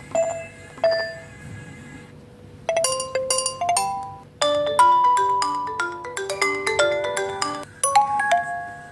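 Built-in Nokia phone ringtones being previewed one after another. Two chiming notes end one tone about a second in. A short bright jingle plays about three seconds in, and a fuller ringtone melody over a lower accompaniment starts just past four seconds.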